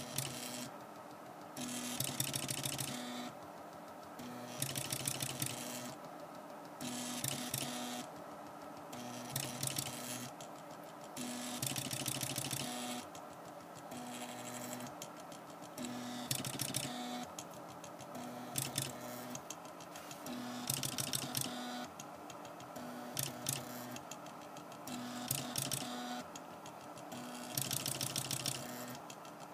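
Homemade pen printer built from a DVD drive mechanism: its small stepper motors buzz in short bursts, about one a second, as the pen sled is driven along the lead screw and the paper roller steps, with a steady hum between the bursts.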